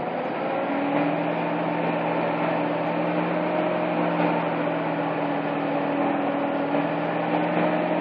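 Aerial ladder fire truck's engine running with a steady, even-pitched hum that comes in about a second in and holds.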